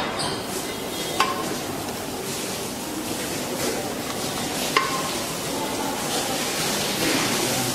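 Beef stew being stirred in a cooking pot over a steady hiss, with two sharp clinks that ring briefly, about a second in and again near five seconds.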